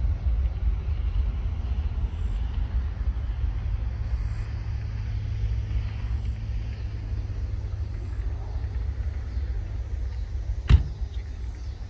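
Distant low rumble of an Embraer 175 jet's twin turbofans on its takeoff run, slowly fading as the airliner climbs away. One sharp click near the end.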